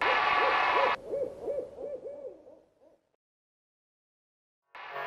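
Glitch logo-intro sound effect: a loud burst of static hiss for about a second over a tone that swoops up and down about three times a second, fading out by about three seconds in. Electronic music starts near the end.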